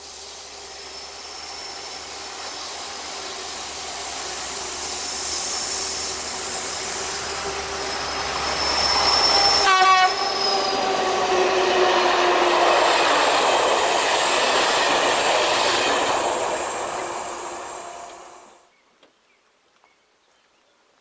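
Two BB 67400 diesel locomotives with Pielstick engines, hauling Corail coaches, approaching and passing close at speed. The engines grow steadily louder for about ten seconds, then the locomotives and the coaches' wheels pass loudly, their pitch falling as they go by. The sound cuts off abruptly a couple of seconds before the end.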